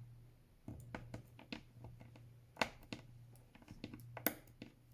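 A plastic card rubbed and pressed over transfer tape on vinyl lettering: scattered light clicks and crackles, with sharper taps about two and a half and four seconds in, over a faint low hum.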